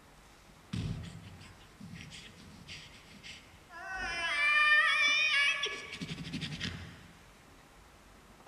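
A man's voice at a microphone making a high-pitched, wavering squeal for about two seconds, between short low mumbling and grunting mouth noises.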